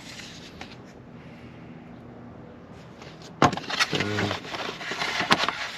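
Packaging of a new cabin air filter being handled and opened: quiet at first, then a sharp crack about three and a half seconds in, followed by crackling and rustling with a few more snaps.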